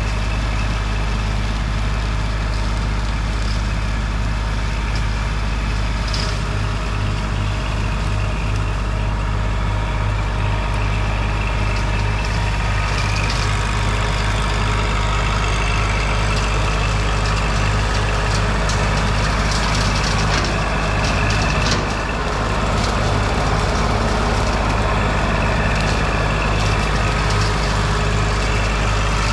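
Kubota L2502 compact tractor's diesel engine running steadily, with scattered clicks and knocks over it.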